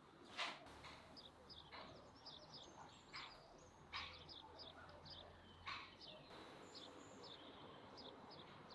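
Faint birdsong: small birds chirping over and over in short high notes, with three brief louder clicks.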